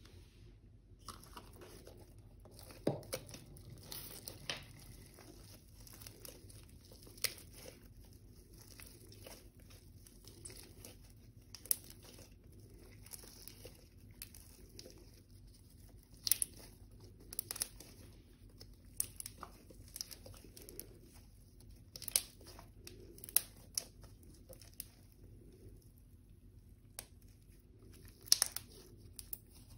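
A large mass of slime being mixed, crackling and popping in irregular sharp clicks, with a few louder clusters of pops.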